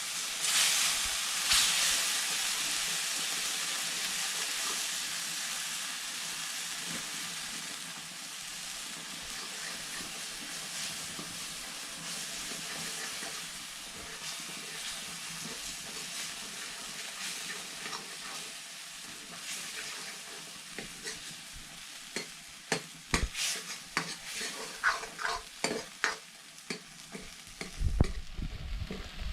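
Food sizzling in a hot pot while it is stirred: a steady hiss with two louder surges about a second in. In the last several seconds the stirring utensil knocks and scrapes against the pot several times a second.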